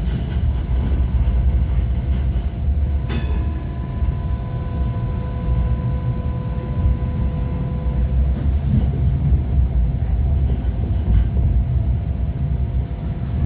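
A Hong Kong Light Rail Phase I car running between stops: a steady low rumble of wheels on track with a constant thin whine above it, and a single sharp click about three seconds in.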